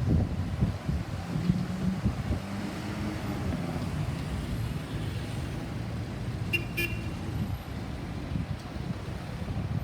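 Road traffic: vehicle engines and tyre noise passing, with gusty rumble on the microphone. Two short high chirps come close together between six and seven seconds in.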